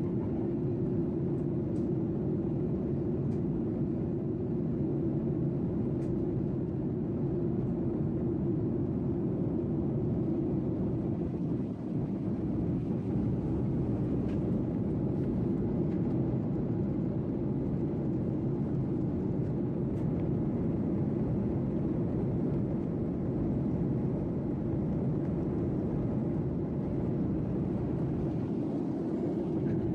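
Steady low rumbling noise that does not change through the whole stretch, with no music or speech.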